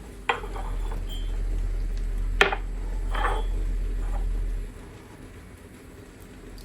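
A lemon squeezed by hand over a glass of herbal tea, with light glass clinks and handling sounds. The sharpest clink comes about two and a half seconds in, and a low steady hum runs under the first four and a half seconds.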